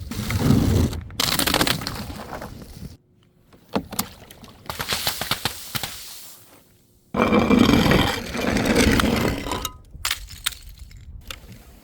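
Brittle objects breaking and being crushed, in several separate bursts of cracking and crunching packed with sharp clicks. There are short silent breaks between them. The loudest and longest burst comes in the second half.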